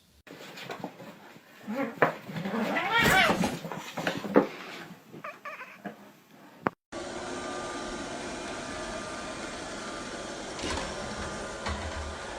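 A domestic cat yowling: a wavering cry that rises and falls, about three seconds in, amid several sharp knocks and thumps. About seven seconds in, the sound cuts to a steady hiss with a few faint knocks.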